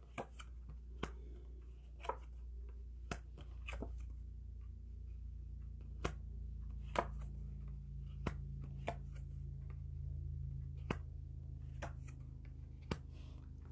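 Oracle cards being handled and laid down on a tabletop: a dozen or so short, light clicks and taps at irregular intervals, about one a second, over a low steady hum.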